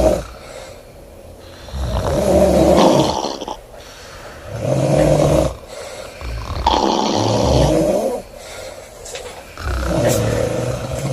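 A sleeping woman snoring loudly, four rough, rumbling snores in a steady rhythm about every two and a half seconds.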